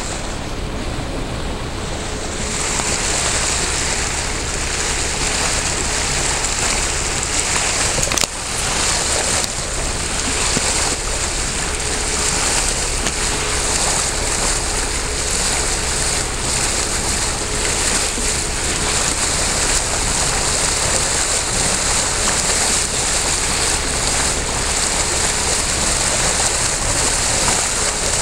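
Steady rushing hiss of turbulent water where two tidal currents collide, with a faint steady hum underneath and one brief click about eight seconds in.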